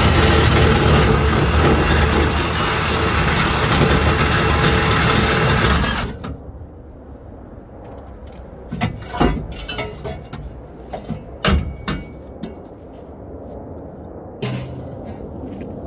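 Sandblaster nozzle blasting abrasive with compressed air: a loud, steady hiss that cuts off sharply about six seconds in, followed by scattered knocks and clicks.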